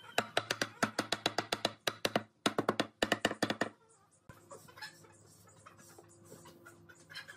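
Wooden mallet rapidly tapping a wooden tabletop to seat its finger-jointed boards, about five or six blows a second, in two runs with a short pause near two seconds in. The blows stop after about four seconds, leaving only faint light knocks.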